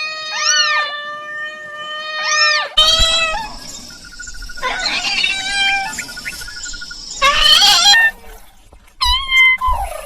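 Kittens meowing: a long drawn-out cry at the start, then short separate meows near the end.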